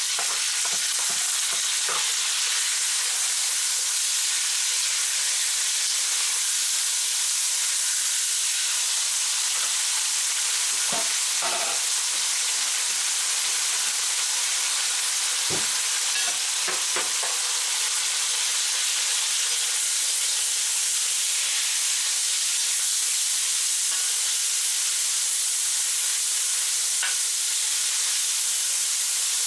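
Thin slices of soy-marinated pork sizzling steadily in hot oil in a wok as they are stir-fried, with a few light knocks of the utensil against the pan.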